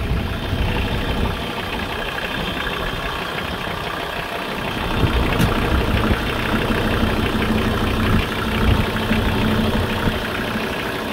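Nanni five-cylinder 85 hp marine diesel engine running steadily at idle, a little louder from about five seconds in.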